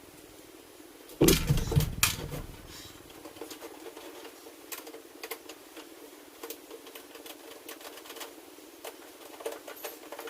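Knocks and light irregular clicking of hands working on a plastic motorcycle storage lid and its hinge screws, with two louder knocks about a second and two seconds in.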